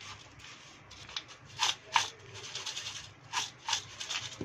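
Metal spoon stirring a dry puffed-rice mix with crushed chips and namkeen in a ceramic bowl: crisp rustling with several sharp scrapes and taps of the spoon.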